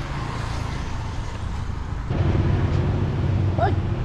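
Road traffic: motor vehicles running past on a street, the engine rumble growing louder about halfway through. A short rising chirp comes near the end.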